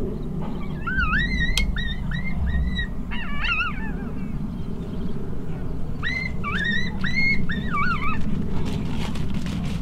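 Three bursts of high, yelping coyote-type calls, each call rising sharply and then holding briefly, over a steady low rumble.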